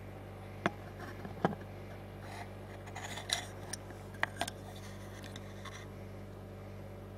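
A few sharp clicks and light scrapes of hand tools on a guitar effects pedal while its footswitch is being desoldered, over a steady low electrical hum.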